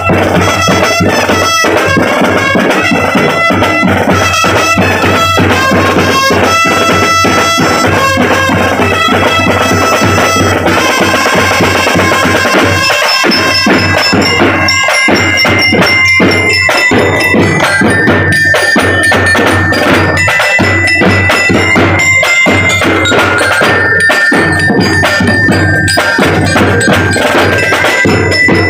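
Drum and bugle corps playing: marching snare and bass drums beating under a melody of held high notes. The tune moves to a higher line about eleven seconds in.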